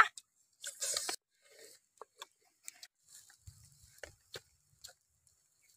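Close-up eating sounds of people tearing and chewing roasted goose by hand: scattered small crunches, clicks and smacks at irregular intervals.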